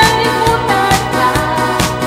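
A woman singing a pop melody over a backing track with a steady drum beat of about two hits a second.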